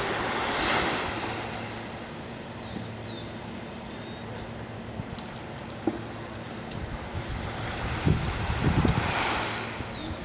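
Small waves washing onto a sandy beach, the wash swelling about a second in and again near the end, over a low steady hum. A few short high chirps come about three seconds in, and wind bumps on the microphone near the end.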